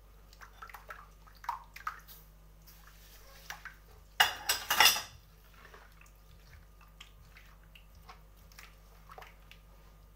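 A hand stirring a runny egg, oil and milk mixture in a glazed clay bowl: soft, scattered sloshes and light knocks, with a louder burst of sloshing about four seconds in.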